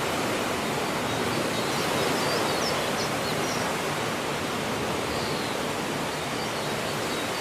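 Ocean surf washing on a shore as a steady, even hiss with no distinct single wave breaks, swelling slightly about two seconds in. Faint high chirps come through now and then.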